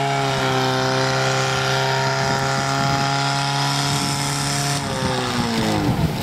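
Engine of a portable fire pump held at high revs, a steady engine note, then the revs drop about five seconds in.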